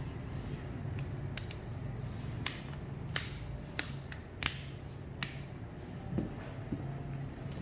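Sharp, irregular clicks and taps of small tools and phone parts being handled during phone repair, about a dozen in all, over a steady low hum.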